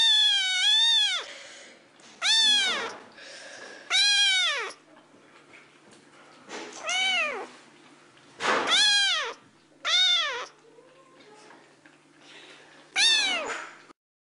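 A kitten meowing loudly and repeatedly: about seven high, arching meows at irregular intervals, the first the longest with a wavering pitch.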